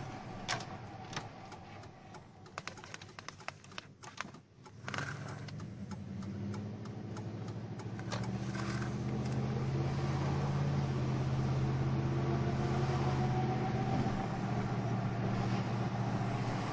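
A Dodge Ram 1500's 5.9-litre Magnum V8 running at light throttle, heard from inside the cab as the truck is driven slowly. Its hum steps up about eight seconds in and then holds steady. Scattered clicks and rattles come in the first few seconds.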